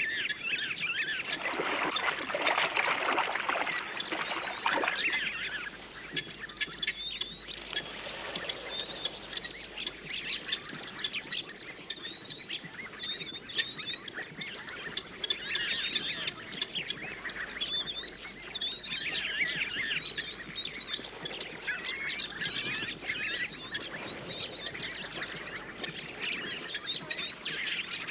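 A flock of helmeted guineafowl calling: a dense, continuous chatter of short cackling calls from many birds, busiest and loudest in the first few seconds.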